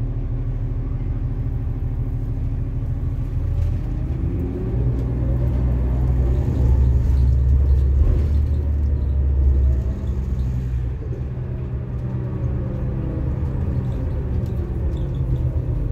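Cabin sound of a 2005 New Flyer DE40LF diesel-electric hybrid bus: a steady low rumble, then the drive pulls away with a rising whine and louder engine from about four seconds in. Near the end the whine falls back in pitch as the bus eases off.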